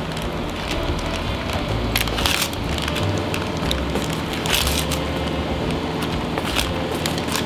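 Background music, over which a metal spoon scrapes and presses thick fruit cake batter into a paper-lined cake tin, in a few short noisy strokes.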